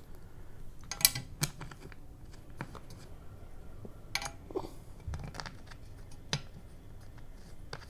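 Scattered light clicks and taps of metal bolts being handled and set into the holes of an office chair's seat mechanism plate, about half a dozen separate clicks, the sharpest about a second in.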